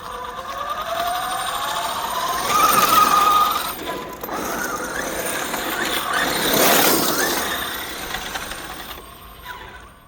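A 1/5-scale RC car's motor whines, rising steadily in pitch as it speeds up for the first three seconds or so. Then comes a rougher mechanical running noise that swells around seven seconds in and fades away near the end.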